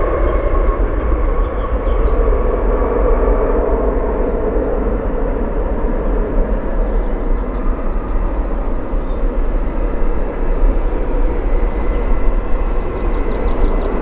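McDonnell Douglas MD-11F freighter's three jet engines at takeoff thrust, a loud, steady rumble as it rolls down the runway and climbs away.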